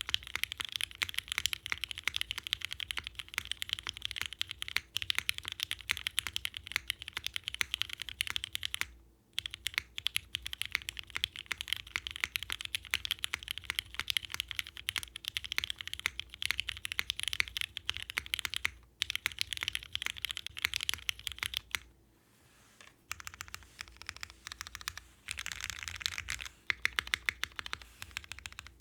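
Fast typing on a mechanical keyboard with Cherry MX Black linear switches on an aluminium plate: a steady rapid clatter of keystrokes. It stops briefly about a third and two-thirds of the way through, and for about a second just past the three-quarter mark.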